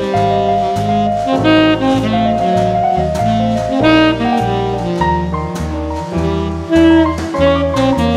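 Instrumental jazz background music with a steady beat and a bass line moving note by note.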